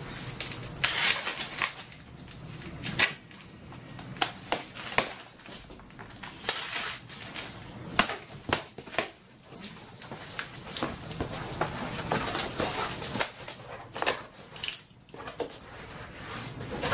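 Packing tape being torn off a large cardboard shipping box and the cardboard flaps pulled open: irregular ripping, crackling and knocking of cardboard.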